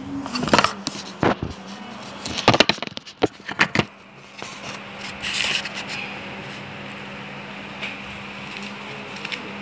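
A series of sharp knocks and scrapes in the first four seconds, then a quieter stretch, all over a steady low hum.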